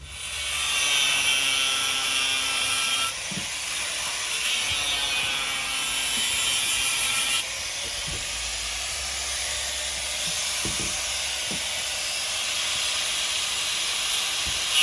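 Power saw cutting through a sewer pipe: a steady, loud hiss that changes tone twice, about three and seven seconds in.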